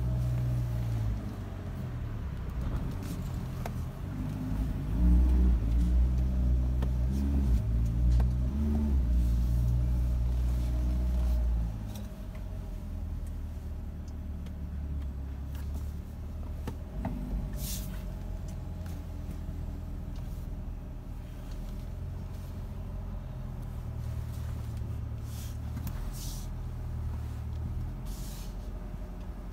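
Chevrolet Corvette C8's V8 engine idling, heard from inside the cabin as a deep, steady rumble. It is louder for the first twelve seconds or so, then drops to a quieter, even idle. A few short clicks come later on.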